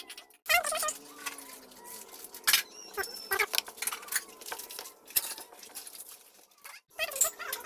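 Scattered clicks, taps and scrapes of a plastic spatula against a plastic bowl as sweet potato sticks are stirred through a thick flour batter.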